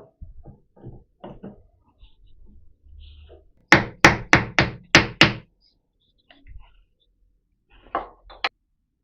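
Sharp knocks from tapping parts of a milling machine's leadscrew handwheel assembly into place during reassembly: a quick run of six, about three a second, in the middle, with softer knocks and clicks before and two more near the end.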